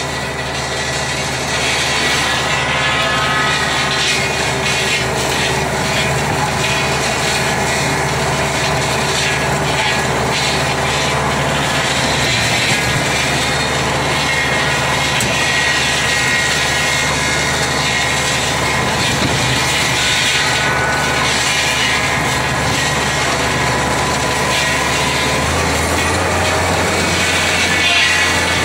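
Engine-driven bush-clearing machine running steadily while cutting sicklebush. Its engine note steps lower near the end.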